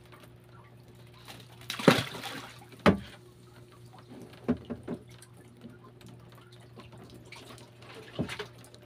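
Water splashing: a few irregular splashes, the loudest about two seconds in and another a second later, over a faint steady low hum.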